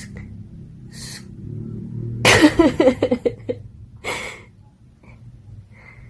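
Comedy sound effects dubbed over a cat grooming: several short hissing bursts, and about two seconds in a loud, rapid stuttering sound with a wavering pitch lasting about a second.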